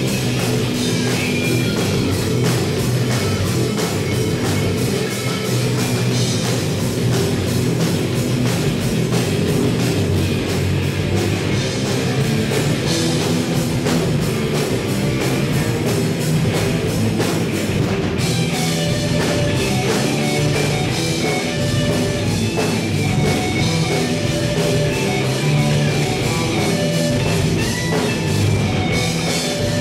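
A rock band playing live, with electric guitars, bass guitar and a drum kit, steady and loud throughout.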